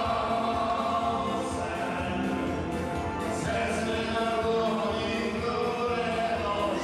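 Dance music with a group of voices singing.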